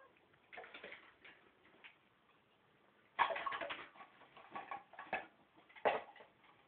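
A Bengal cat grooming itself, licking its fur with quick irregular clicks and rustles. The clicks come in clusters, the loudest a little after three seconds in, with a sharp one near the end.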